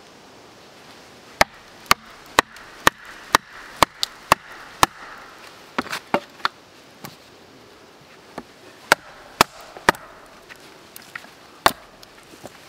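A wooden baton striking the back of a hatchet driven into a log round, to split the wood. Sharp wooden knocks come about two a second in runs of several strikes, with short pauses between the runs.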